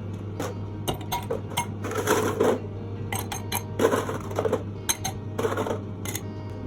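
Kitchen handling sounds: irregular clicks and clattering knocks of utensils and cookware, in several short clusters, over a steady low hum.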